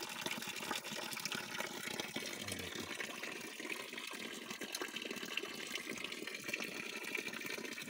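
Spring water running steadily from a pipe outlet into a stone channel.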